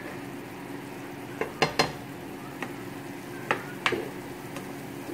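A spoon stirs and scrapes a sizzling minced-garlic sauce in a white-coated frying pan. Several sharp knocks of the spoon against the pan are heard; the loudest come in two close pairs, about a second and a half and three and a half seconds in.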